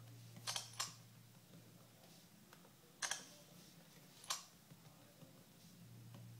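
Short, sharp clicks from an iPad mini as it is woken and locked: two close together about half a second in, then single clicks at about three and four and a half seconds.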